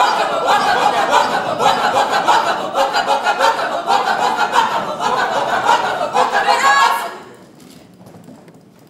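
A crowd laughing loudly, many voices overlapping, dying away about seven seconds in.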